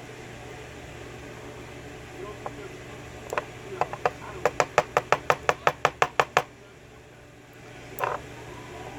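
Small metal parts of a gutted Yale pin-tumbler mortise cylinder being handled: a few scattered light clicks, then a quick, even run of about fifteen sharp taps over two seconds, and one more click near the end, over a steady low hum.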